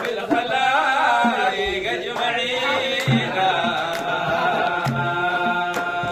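A Sudanese madih (prophetic praise song) being sung in Arabic, a singing voice carrying the melody over regular drum strokes.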